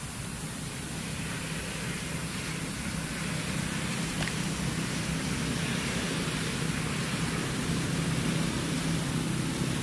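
Steady outdoor background hiss with a low hum underneath, and a faint click about four seconds in.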